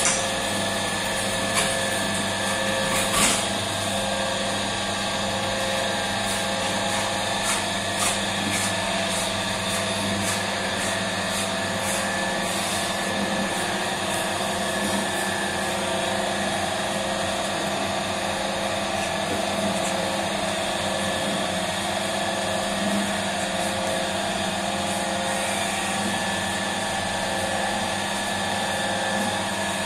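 Electric bakery dough mixer running steadily, its motor whining with a faint regular pulse as the hook kneads a large batch of stiff bread dough in the steel bowl. A few light knocks in the first few seconds.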